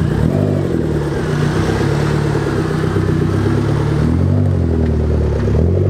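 A car engine running close by, its revs rising and falling several times.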